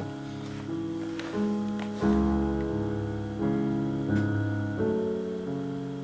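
Background music: slow piano chords, a new chord struck about every second and left to ring.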